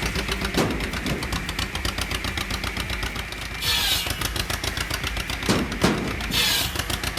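Two-cylinder engine of a 1940 John Deere Model B running steadily, with a rapid, even popping exhaust beat as it drives a belt-driven homemade wood saw. Three short hissing bursts sound over it.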